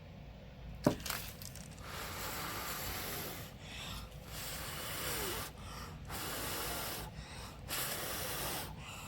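A person blowing hard by mouth onto wet acrylic paint to push it outward into a bloom: several long, breathy blows of a second or two each, with short pauses between them for breath.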